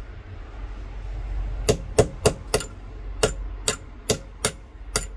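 Hammer taps on a punch driving the small metal spring bar out of a Ford flip-key fob held in a clamp: about nine sharp metallic taps, starting about a second and a half in and coming roughly two or three a second.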